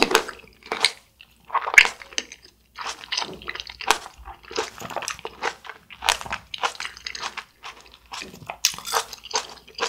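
A mouthful of Shine Muscat grapes being bitten and chewed: many short, irregular chews one after another.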